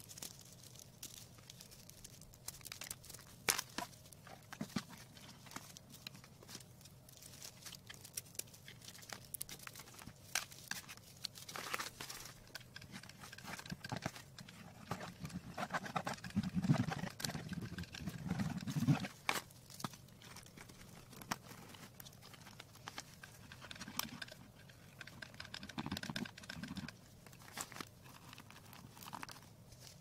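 Close handling noise of plastic artificial foliage being set in place on a craft board: scattered clicks and taps with crinkling and rustling, busiest about halfway through.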